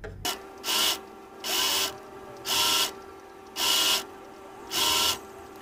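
Electric sewing machine stitching a fabric piping strip closed around a cord, run in short spurts about once a second, the motor speeding up and slowing within each spurt, with a steady hum between spurts.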